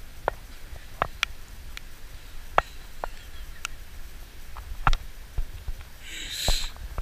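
A person reaching into bramble undergrowth makes scattered sharp ticks and snaps at irregular intervals, with a short rustle of leaves and waterproof clothing about six seconds in.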